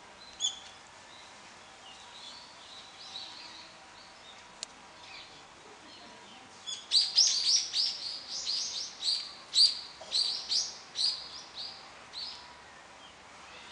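Small birds chirping. Scattered faint calls at first, then, about halfway through, a quick run of loud, high-pitched chirps, several a second, lasting some five seconds.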